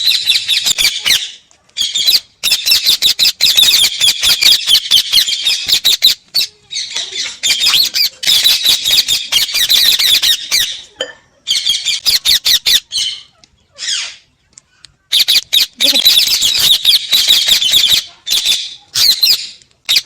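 Parrots squawking and chattering in loud, harsh, rapid bursts that each last a few seconds, with short breaks between them.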